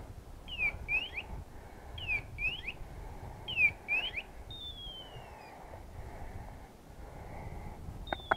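High bird-like chirping calls: three pairs of sharp rising chirps about a second and a half apart, then a single falling whistle. A few sharp clicks come at the very end.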